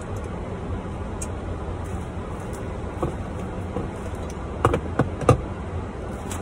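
Steady low hum inside a car, with three sharp clicks close together a little before the end.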